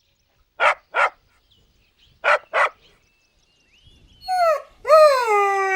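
Golden retriever puppy barking: two quick pairs of short barks, then a rising-and-falling whine that turns into a long, steady howl near the end.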